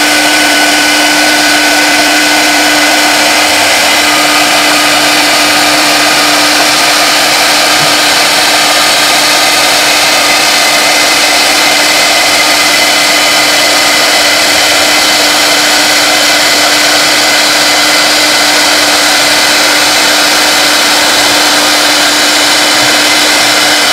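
CNC router spindle running at speed while its bit cuts acrylic sheet: a steady whine over a constant hiss.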